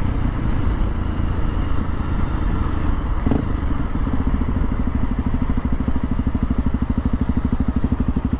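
Dual-sport motorcycle engine running as the bike rolls to a stop, with a short knock about three seconds in; from about five seconds in it settles into an even, fast idle beat.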